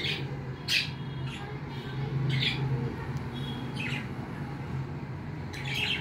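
Cockatiels giving short, sharp squawking calls, about six spread through the few seconds, over a low steady hum.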